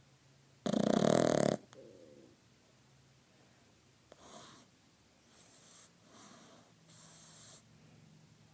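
A pug snoring: one loud, rattling snore about a second in, then four fainter snoring breaths a second or so apart.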